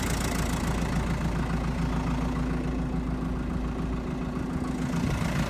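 Backhoe engine idling steadily while it drives a skid-steer snowblower attachment through hydraulic lines. A steady hum comes in about two seconds in and stops near the end.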